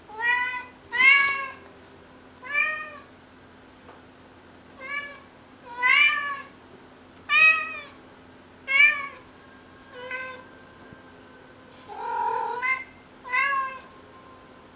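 Domestic cat meowing over and over, about ten short calls each rising and falling in pitch, one every second or so; one call near the end is lower and rougher.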